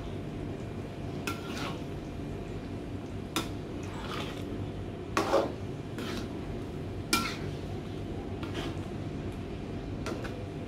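Spatula scraping and knocking against a metal wok as a thick chilli sambal with fish is stirred, in irregular strokes every second or two over a steady low background.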